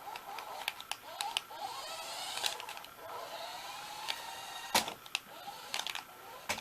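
A remote-control toy car's small electric drive motor whining in two rising spurts, as if driven briefly into position, with scattered light plastic clicks and a sharper knock a little before five seconds.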